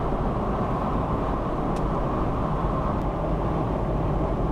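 Steady road and engine noise heard inside a car's cabin while driving at speed, a dense low rumble with two faint high ticks in the middle.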